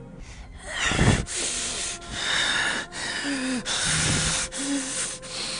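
Horror sound effect of a creature's heavy hissing breaths, several in a row, with two short low voiced sounds among them. In the story it stands for Tatay Dadoy's aswang breathing, which he is holding in check.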